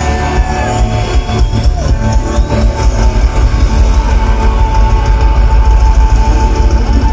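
Live rock band playing loud music, with electric guitar over a steady drum beat.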